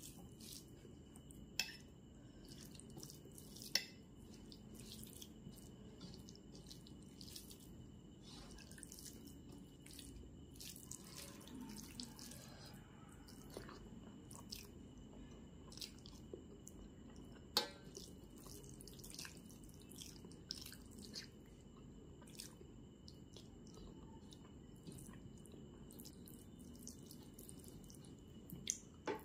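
Close-miked eating of soft rice by hand: wet chewing with many small mouth clicks and smacks, a few of them sharper and louder, and soft squishing as the rice is mixed with the fingers.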